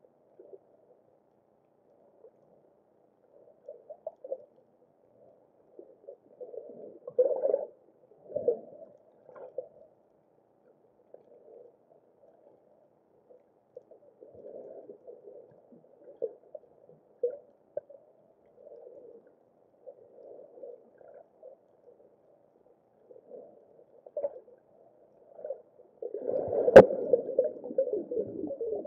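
Muffled underwater gurgling and water movement, coming and going in short patches, with a single sharp knock near the end.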